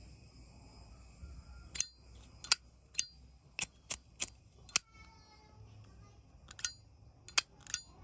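Zippo lighter's hinged lid being flicked open and snapped shut again and again: sharp metallic clicks with a bright ring, about a dozen in all, with a short pause in the middle.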